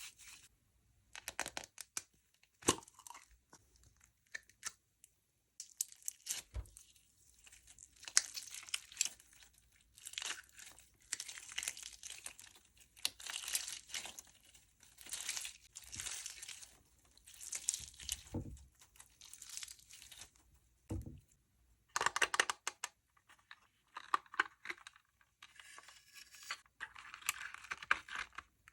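Slime being worked by hand, giving irregular runs of crackling, popping clicks with short pauses between them.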